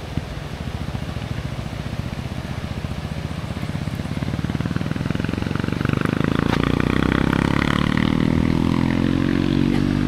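A small motorcycle engine running close by. It grows louder and rises in pitch from about four seconds in, then holds steady near the end.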